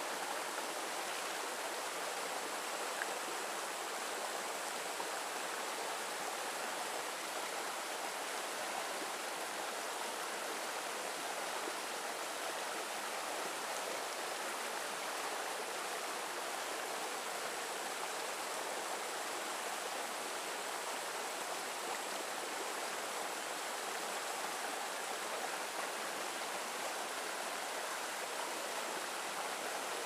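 Shallow, boulder-strewn stream rushing over and between rocks in small white-water cascades: a steady, even rush of water.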